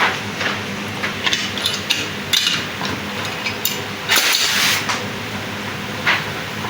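Metal tools clinking and knocking against metal parts in a run of irregular short strikes, with a longer scraping rush a little past four seconds in, over a steady hum and hiss.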